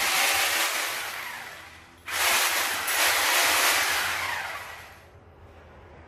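Two loud bursts of hissing noise, the first at the very start and the second about two seconds in. Each starts suddenly and fades away over two to three seconds.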